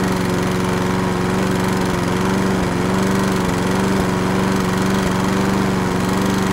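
Ride-on mower engine running loudly at a steady, unchanging pitch.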